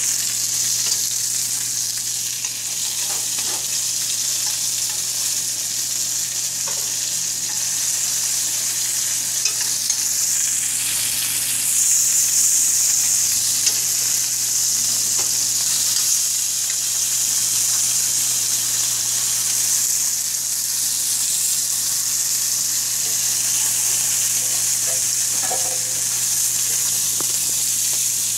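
Pork chops sizzling as they fry in a stainless steel skillet: a steady high hiss of hot fat, swelling a little about twelve seconds in.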